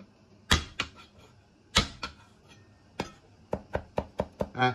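Chinese cleaver on garlic on a cutting board: two loud whacks as the blade comes down on the cloves to smash them, then a few light knocks. Near the end comes quick, even chopping of the smashed garlic, about four to five chops a second.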